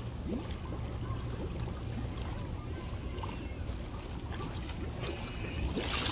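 Water splashing and lapping as a crowd of koi thrash at the pond surface, with a louder splash about six seconds in, all over a steady low rumble.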